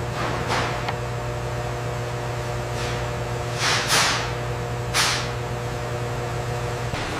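Steady hum of factory machinery, with about five short hisses over it, two of them close together about four seconds in.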